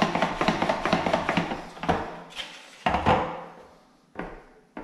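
Plastic boilie rolling table at work: the ridged top board is pushed rapidly back and forth over the bait paste, a quick scraping rattle. It stops about two seconds in, followed by a few knocks as the board is lifted off and set down on the worktop, the loudest about three seconds in, then a couple of light clicks.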